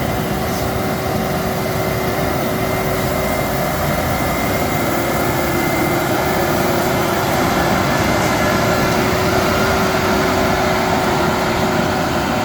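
A machine running steadily, a constant mechanical hum with one steady tone through it.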